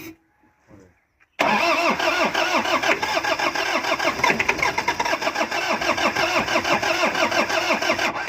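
Truck engine turning over on its starter motor for about seven seconds, with a rhythmic pulse of about five beats a second, without catching, then the starter is released. It is a no-start, which the mechanics link to the engine computer box.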